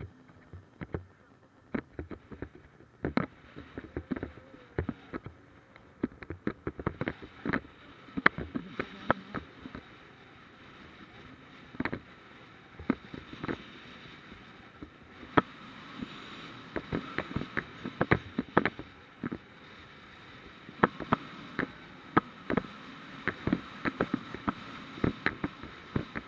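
Snowmobile riding along a groomed trail, heard from on board: a steady engine drone, stronger in the second half, under frequent irregular knocks and rattles as the sled bounces over the snow.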